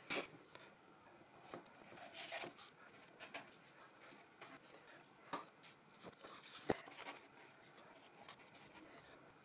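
Faint paintbrush strokes scratching and rubbing across paper, with scattered light taps and one sharp click about two-thirds of the way through.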